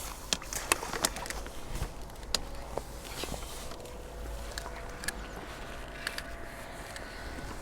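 Several sharp clicks and knocks of fishing tackle being handled, most in the first couple of seconds, with a bird calling faintly in the background.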